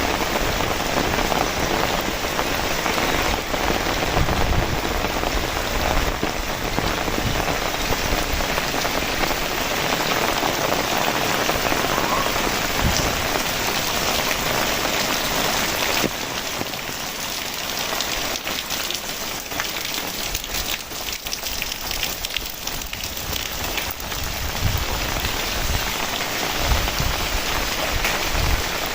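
Heavy rain falling steadily. About halfway through it eases slightly, and single drops can be heard ticking more distinctly.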